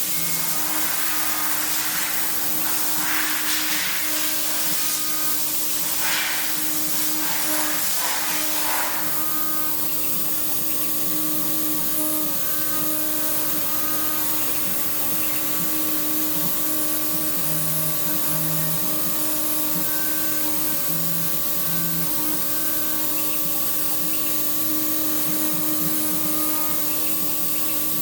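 Desktop mini CNC milling machine running a job, its spindle giving a steady whine, with hissing bursts over the first nine seconds and short shifting lower tones later on.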